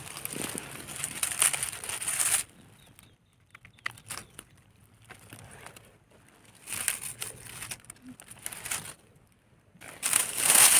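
Dry fallen leaves crunching and rustling in three bursts, the last as a hand pushes into the leaf litter.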